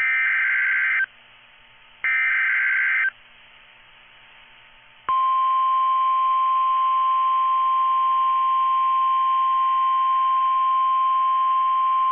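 Emergency Alert System SAME header: two one-second bursts of shrill digital data tones a second apart, the last of the header's three repeats. After a pause of about two seconds, the steady single-pitch 1050 Hz NOAA Weather Radio warning alarm tone starts, announcing a tornado warning.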